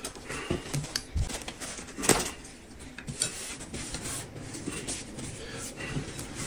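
Chopsticks scraping and tapping in a small tin of chili sauce and on a plate while spreading the sauce onto steamed buns. Light clinks and scrapes, with one louder knock about two seconds in.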